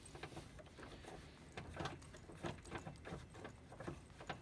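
A FeatherLite screw-in tow hook being turned by hand into its threaded bumper mount: faint, irregular metallic clicks and clinks as it turns.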